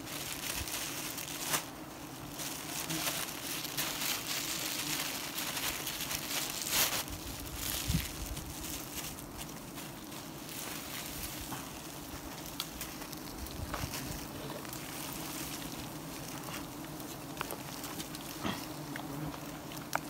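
Wild honeybees buzzing in a steady hum as their nest is smoked out, over a hiss of rustling leaves and twigs with a few sharp snaps in the first half.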